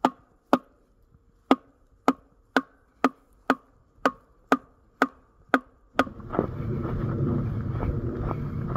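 A hanging hollow wooden log drum, a wild-boar scarer, struck with a wooden stick: about a dozen sharp, hollow knocks, roughly two a second, with a short pause after the second. About six seconds in the knocking stops and a steady rustling noise of walking on through snow takes over.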